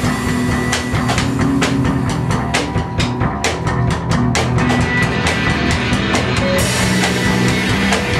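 Live improvised rock from a band: a drum kit played with dense, rapid drum and cymbal hits over guitar.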